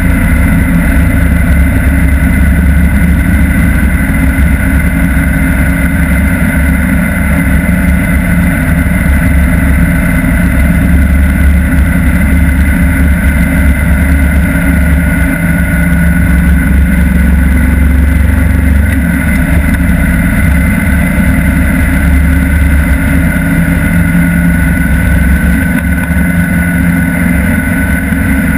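Motorcycle riding at a steady highway speed: the engine runs evenly under loud, steady wind rush and road noise on the bike-mounted camera's microphone, with no revving or gear changes.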